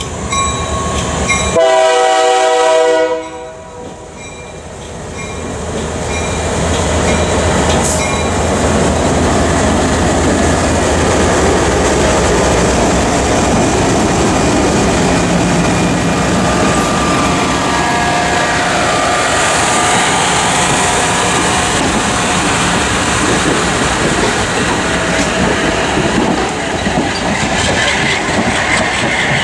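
A diesel locomotive's multi-note air horn sounds a chord that cuts off sharply about three seconds in. Then the rumble and wheel clatter of the train running on the rails build up and stay steady and loud.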